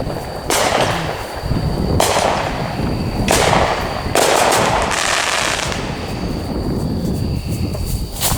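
Fireworks exploding, about four loud bangs in four seconds, each with a drawn-out tail, then dying away.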